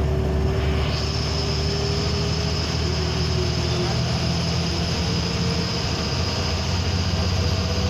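MSRTC Lal Pari bus's diesel engine running steadily under way, heard from inside the cab along with tyre and road noise. A thin, high, steady whine comes in about a second in.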